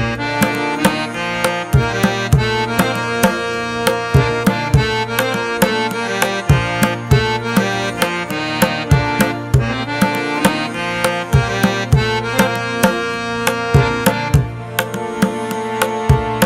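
Background music: tabla drum strokes in a steady rhythm over sustained held instrumental tones, in an Indian classical style.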